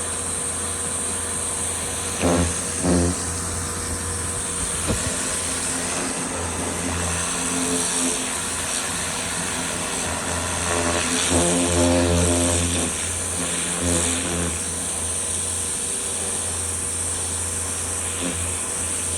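Pressure washer running and spraying: a steady high hiss of water over a constant low motor hum, with short pitched surges about two seconds in and again around eleven to thirteen seconds.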